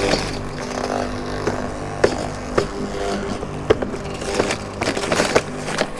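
Mac Allister 2500-watt electric garden shredder running with a steady motor hum, broken by irregular sharp cracks and snaps as it chews up green cuttings and twigs.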